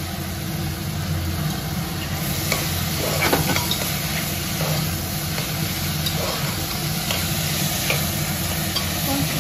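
Chopped vegetables sizzling in hot oil in a pot while a spoon stirs and scrapes them, with short ticks of the spoon against the pot. The sizzle grows brighter about two seconds in. A steady low hum runs underneath.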